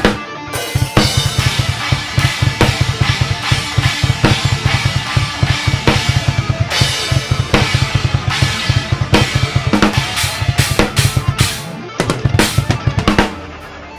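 Drum kit played fast and loud: a rapid, steady run of double bass drum strokes under snare hits and repeated crashes on Paiste cymbals. About a second before the end the drumming stops, leaving quieter backing music.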